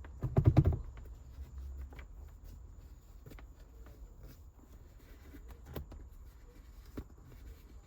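Rope being wrapped around a car's gear-shift boot by hand: soft rubbing and handling noise with a few light taps and clicks. A louder brief rustle comes about half a second in.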